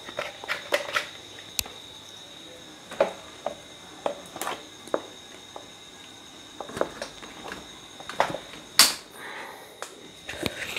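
Scattered light clicks and knocks of small objects being handled on a workbench, with one brief louder rustle near the end, over a faint steady high-pitched whine.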